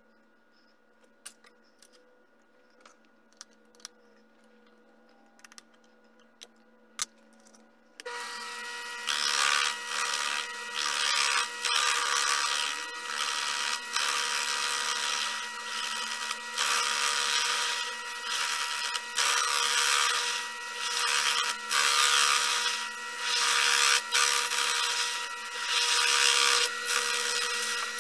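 Small metal clicks and taps as lathe parts are handled and tightened, then a benchtop mini lathe starts about eight seconds in and runs with a steady whine. Over the whine, a rasping noise swells and fades about once a second as the spinning workpiece is cut.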